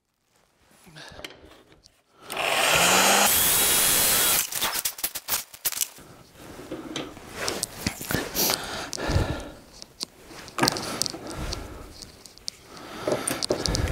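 An electric heat gun switches on about two seconds in and runs steadily for about two seconds as its motor spins up, then goes off. After that come scattered knocks, clicks and scrapes of wooden blocks and stiff Kydex plastic being handled against a bench vise.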